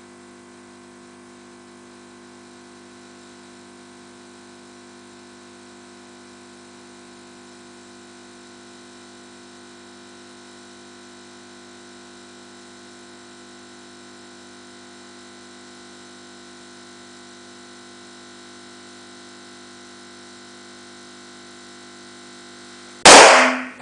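Steady motor hum as a blue latex balloon is inflated, then the balloon bursts with one sudden, very loud pop near the end that dies away in under a second.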